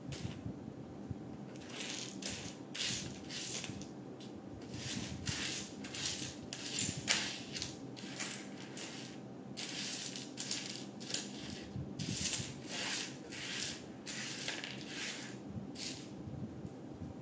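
Loose plastic LEGO pieces clattering and clinking as a hand sifts through them, a busy string of irregular clicks and short rattles.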